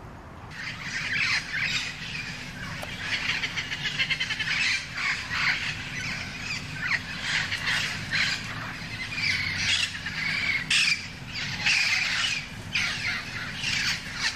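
A flock of feral parrots squawking, with many harsh calls overlapping almost without pause.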